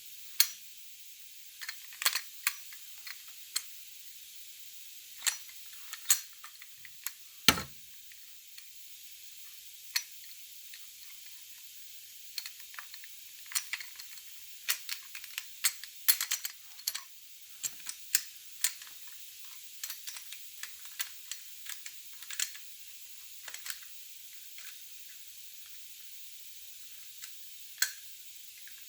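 Scattered clicks and light knocks of Beretta A300 Outlander shotgun parts being handled and fitted together, at irregular intervals, with one heavier knock about a quarter of the way through.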